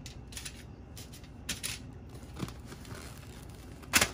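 Frozen tempura shrimp being set down on an aluminium-foil-lined baking sheet: a few brief crinkles and taps of the foil, the loudest near the end.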